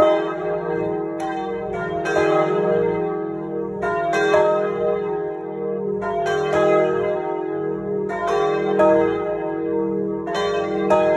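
Three swinging bronze church bells of about 1000, 750 and 500 kg ringing together in full peal. Their clappers strike at uneven spacing, a second or two apart, each strike ringing on over a lasting hum of the bells. Heard close up in the belfry.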